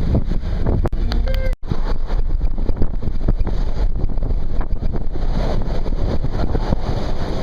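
Wind buffeting the microphone: a loud, steady low rumble, cut by a brief dropout about one and a half seconds in.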